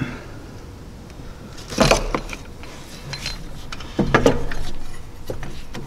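Wiring harness and plastic electrical connectors handled in an engine bay, rattling and clicking, with the louder clatters about two seconds and four seconds in.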